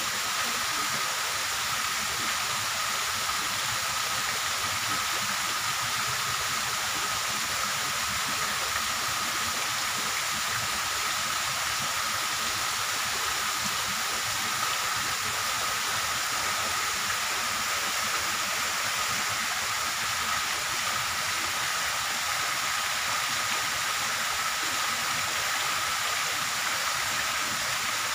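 Steady, even hiss of background noise with a faint steady high tone in it, unchanging throughout, with no distinct events.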